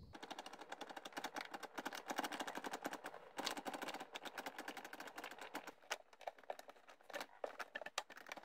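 Faint, rapid clicking and ticking as a rubber dishwasher door gasket is pushed into its channel around the tub with a screwdriver handle, seating the barbed edge. The clicks come thick and fast at first and thin out after about six seconds.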